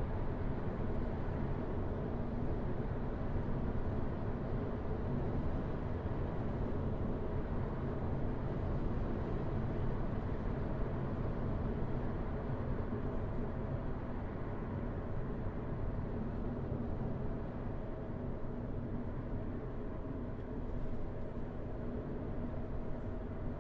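Car cabin noise while driving at a steady pace: an even, unbroken drone of tyres on the road and engine hum.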